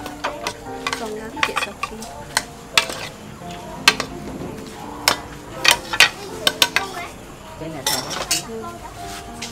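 Kitchen utensils clinking and scraping: a metal spoon stirring in a steel pot and chopsticks knocking in a frying pan, in a run of sharp, irregular clinks.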